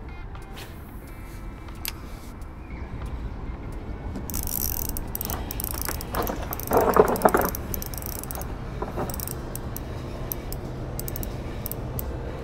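Fishing reel being wound, its gears ticking and clicking, while a small bream is reeled in, with one louder burst about seven seconds in.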